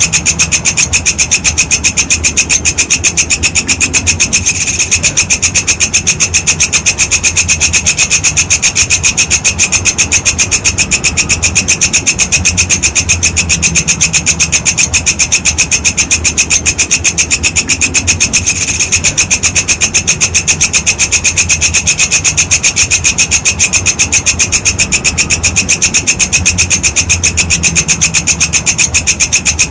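Walang kecek insect stridulating: a loud, unbroken rasping trill of rapid, evenly spaced pulses, several a second, with a high ringing edge. It falters briefly twice, a few seconds in and again past the middle.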